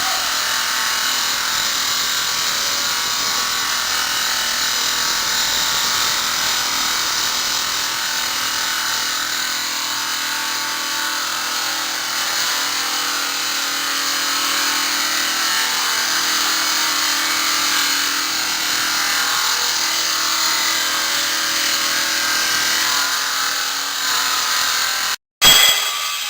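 The 350 mm circular saw blade of a Maqfort RM350 SRF granite-cutting machine running steadily through stone, a loud even grinding whine. The sound cuts out for a moment near the end and comes back with a short loud burst.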